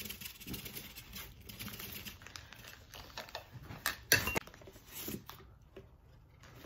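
Packaged hamster supplies being handled: plastic wrapping and card packs rustling and tapping as they are picked up and swapped between hands, with a louder rustle about four seconds in.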